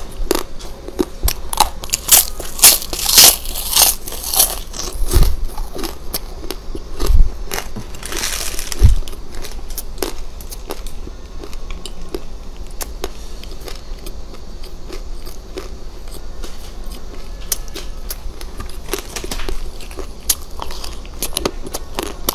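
Close-miked eating sounds: crisp bites and crunchy chewing of a candy treat, loudest in the first several seconds with a few low thumps, then softer chewing.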